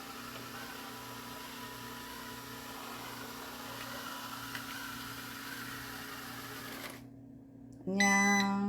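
Gipel robot vacuum cleaner running with a steady motor hum as it drives back to its charging dock. About seven seconds in the motor shuts off, and a second later a single loud electronic beep sounds for under a second, as it docks to charge.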